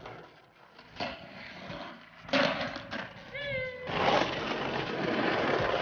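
Skateboard sounds: a sharp clack a little after two seconds in, then a brief falling meow-like call, then a steady rolling noise of skateboard wheels on concrete from about four seconds in.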